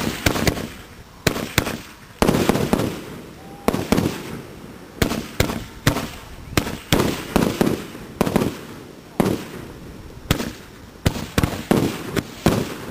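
A ground-set firework tube firing a rapid, irregular string of loud bangs, roughly two a second, each with a brief echoing tail.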